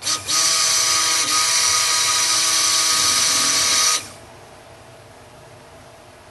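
Stick (immersion) blender running in a stainless steel pot of cold-process soap batter, a steady motor whine for about four seconds before it is switched off. It is emulsifying the oils and lye to light trace.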